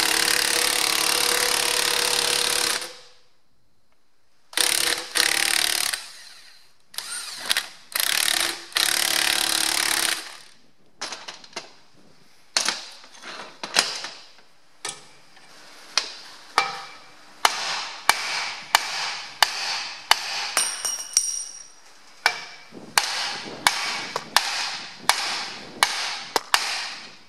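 Electric impact wrench hammering on a steering-wheel puller's forcing screw in bursts, a long run first and then two shorter ones, trying to shake loose a tight steering wheel. After that comes a long series of sharp metallic knocks, about one to two a second.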